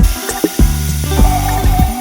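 Background music: plucked guitar and bass over a steady beat.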